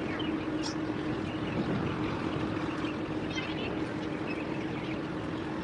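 Harbour ambience: a steady low engine drone from ships under way, over a constant hiss of water and wind, with faint high chirps scattered through it.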